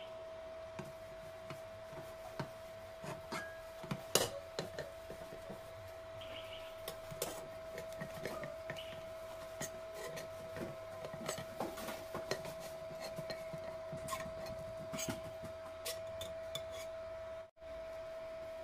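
A metal knife scraping and clicking against the rim of a metal pan, with knocks as the pan is handled, the loudest about four seconds in. A steady high hum runs underneath.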